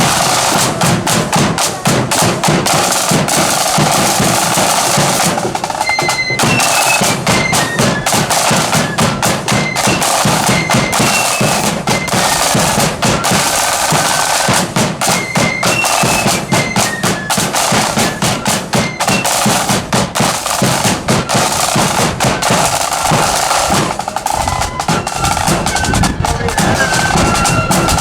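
Marching flute band playing: snare drums rattle and the bass drum beats steadily throughout, with a high flute melody joining about five seconds in, breaking off around twenty seconds and coming back near the end.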